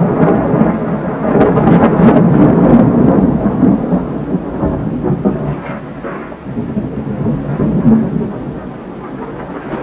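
Thunderstorm: thunder rumbling with rain, swelling and fading in waves.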